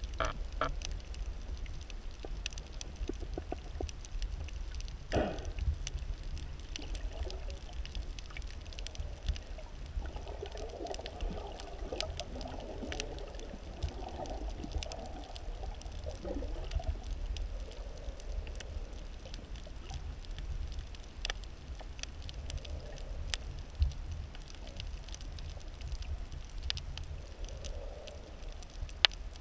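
Underwater sound heard through a camera's waterproof housing: a steady low rumble with scattered sharp clicks. Muffled gurgling comes and goes, strongest from about ten to seventeen seconds in.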